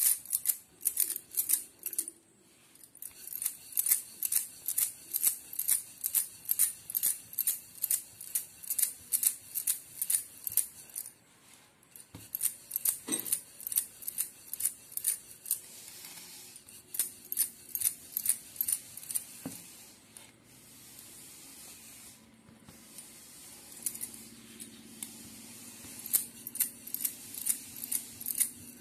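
Rhythmic clicking and clacking, about two strokes a second, as a wooden rolling pin is worked back and forth over a stuffed paratha on a marble rolling board, with the roller's bangles jingling. There are a couple of short pauses.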